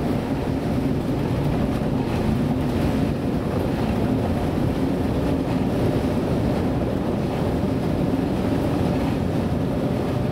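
Steady low rumble of a rescue vessel's engines mixed with storm wind and heavy seas, heard from inside the wheelhouse.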